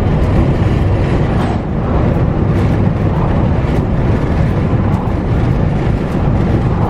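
Heavy tropical rain pouring down: a loud, steady rush with many scattered sharp drop hits.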